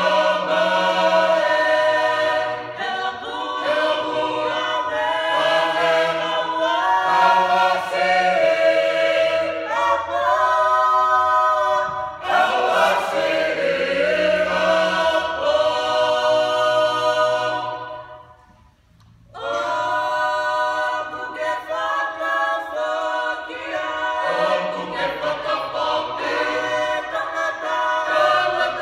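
Mixed church choir singing a Tongan hymn unaccompanied, in sustained harmony. The singing stops for about a second roughly two-thirds of the way through, then goes on.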